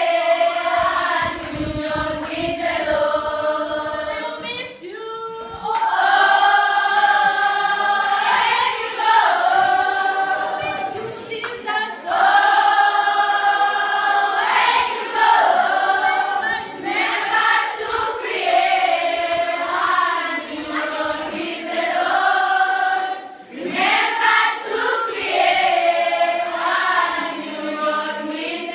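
A choir of schoolgirls singing a goodbye song together without accompaniment, in long phrases with held notes and brief pauses between them.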